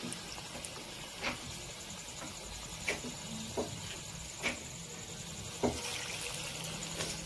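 Gram-flour fritters (bhajiya) deep-frying in hot oil in a kadhai: a steady sizzle with occasional sharp pops and crackles.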